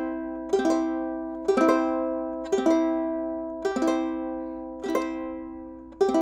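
Ukulele strummed on a C major chord, one finger on the third fret, about once a second, six times. Each strum starts sharply and rings out, fading before the next.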